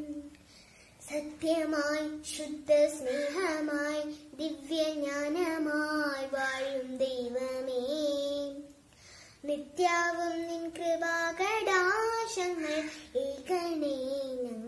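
A young girl singing a prayer song solo and unaccompanied, in long held notes that glide between pitches. She breaks off briefly twice to take a breath.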